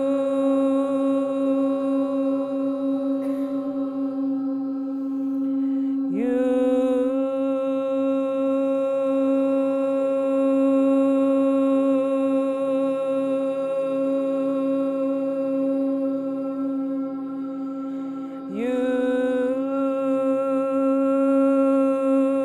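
A voice holds one long chanted note at a steady pitch, breaking twice for breath, about six seconds in and again about three-quarters of the way through, and each time sliding up from below back onto the note. Under it a steady tone at the same pitch carries on through the breaths, from a frosted quartz crystal singing bowl.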